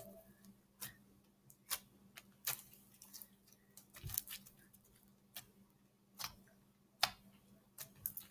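Irregular sharp clicks and snaps from hands working slime, about one a second.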